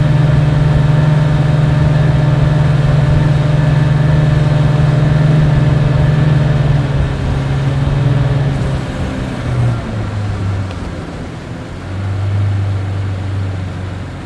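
Boat outboard motor running steadily under way, then throttled back about ten seconds in, its pitch dropping to a lower, less even note.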